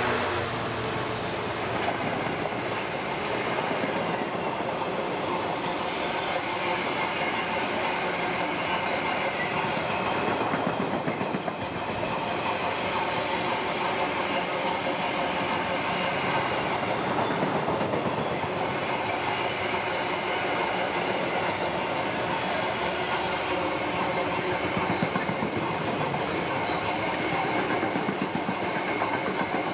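A Class 66 diesel-electric locomotive's engine passing at the start, then a long train of empty car-carrier wagons rolling by at speed, wheels rattling and clicking steadily on the track.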